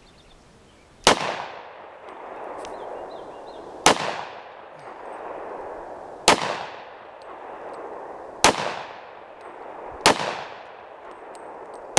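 A .40-calibre semi-automatic pistol fired in slow, aimed shots: six shots about two seconds apart, the last right at the end, each trailing off in a rolling echo.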